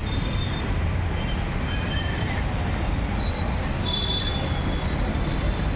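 Steady low rumble and rattle of a moving vehicle, with a few faint thin high tones above it.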